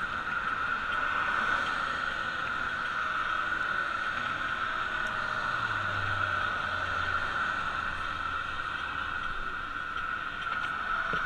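Steady riding noise of a bicycle on a bridge walkway, with traffic on the roadway alongside: an even hiss throughout and a low rumble from about five to nine seconds in.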